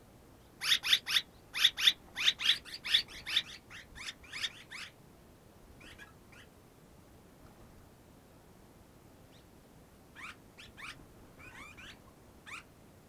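Red-rumped swallows giving a quick run of short chirping calls, about two a second and loudest at first, then a few fainter chirps near the end.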